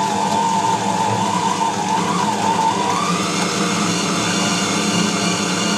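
Tabletop bowl cutter running at low speed, its blades chopping salted pork mince with ice water into sausage emulsion: a steady motor hum with a whine that rises slightly about three seconds in.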